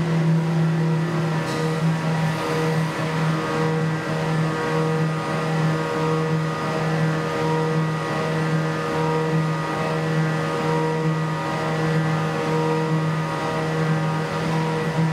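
Tormach 1100MX CNC mill's spindle, around 8,000 rpm, adaptive-pocketing 6061-T6 aluminium with a quarter-inch end mill. The cut is a steady pitched whine with overtones that pulses regularly, a little under twice a second.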